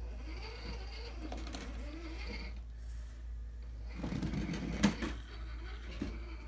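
Axial SCX10 II Deadbolt RC crawler's electric motor and gear drivetrain whining, the pitch rising and falling with the throttle as it crawls over an obstacle. There is a louder grinding stretch about four seconds in, with a sharp knock just before five seconds.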